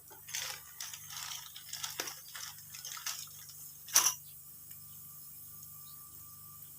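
Small clicks and rustles of objects being handled, with one sharp, loud click about four seconds in, followed by a faint steady tone.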